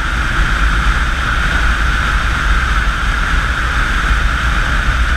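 Steady wind rush and motorcycle engine drone picked up by a camera on a motorcycle at highway speed, with a strong low rumble under a constant hiss.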